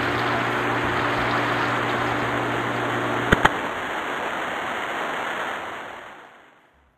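Electric desk fan running: a steady rush of air over a low motor hum. A little past the middle come two sharp clicks, the hum stops, and the rush of air fades away to silence.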